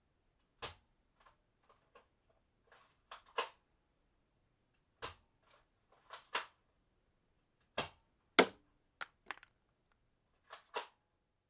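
Weapon sound effects: a series of short, sharp mechanical clicks and clacks at irregular spacing, many in quick pairs, with the loudest about eight seconds in.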